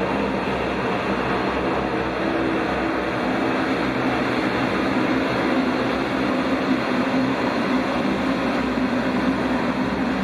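Boeing 737-800's twin CFM56-7B turbofan engines running at takeoff thrust as the jet climbs away after liftoff, a steady, unbroken jet noise.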